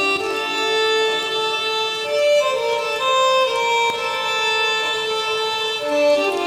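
Background music led by a fiddle playing a melody, with held notes changing every half second or so.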